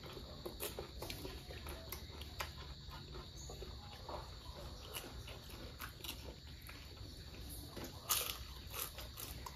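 Close-miked chewing and lip-smacking of people eating fried street food, with scattered short crunches and wet mouth clicks, and a louder crunch about eight seconds in.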